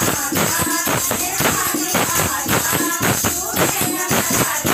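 Live devotional kirtan music with a fast, steady beat of jingling hand percussion and some pitched melody over it.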